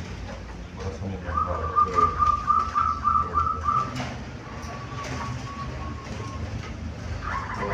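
Zebra dove (perkutut) cooing: a run of quick repeated rolling notes beginning about a second in, and another run starting just before the end.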